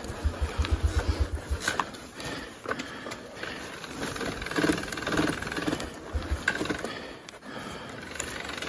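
Honda dirt bike running at low revs, its engine thumping in short runs of about eight beats a second, while it rolls down a rough dirt trail with rattles and knocks from the bike.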